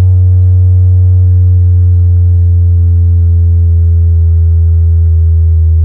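Vonyx SPJ1000A powered PA speaker's woofer playing a steady low bass test tone, with faint overtones above it, during a frequency-response test.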